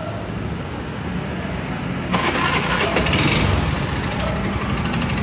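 Honda automatic scooter's single-cylinder engine running, turning suddenly louder and harsher about two seconds in. The scooter is being checked for a rough engine noise whose source is still being traced.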